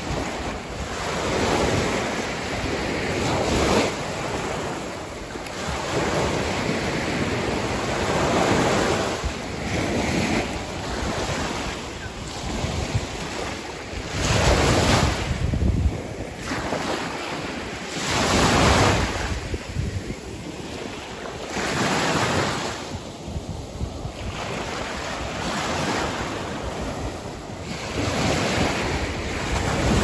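Small Baltic Sea waves breaking and washing up a sandy shore, a rushing surf that swells and fades every few seconds, with wind buffeting the microphone.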